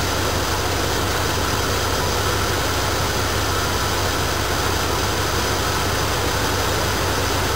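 Dodge Ram van's engine idling steadily, heard close up with the hood open, while its leaking radiator is topped up with water and the engine runs to bleed the air out.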